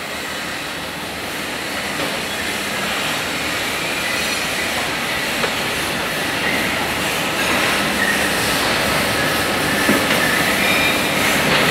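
Steady din of a metal-fabrication workshop with machinery running, growing slightly louder, with faint high whines in the second half.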